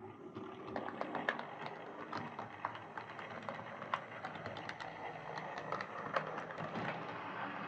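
Hornby Class 14xx model tank engine running along OO gauge track: a steady whir from its Type 7 motor and gears, with frequent irregular clicks from the wheels on the rails. It runs smoothly, with no sign of the drumming it was sent in for.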